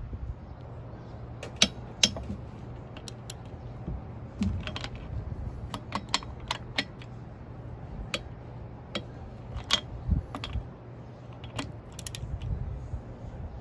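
Ratchet wrench clicking in short, irregular runs on the carrier bearing cap bolts of a Dana 60 differential as they are loosened, over a low steady hum.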